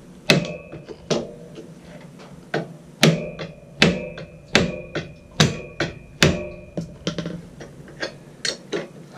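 Mallet blows on a wrench set on a flywheel puller bolt, striking to break the alternator rotor (flywheel) of a 1981 Honda CB750 loose from its shaft. About a dozen and a half sharp metallic hits, roughly two a second and unevenly spaced, the harder ones ringing briefly.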